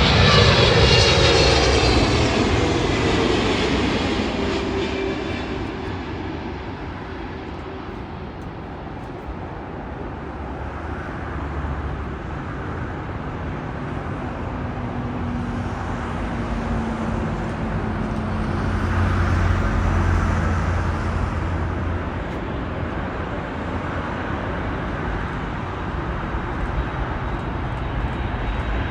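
Boeing 777 jet airliner passing close by on its landing approach: a loud engine whine that slides down in pitch as it goes past, fading into a steady jet rumble. The rumble swells again about two-thirds of the way through.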